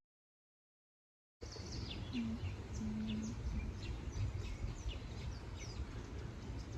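Birds chirping: a run of short, quick, falling chirps over a steady low background rumble, starting about a second and a half in after dead silence.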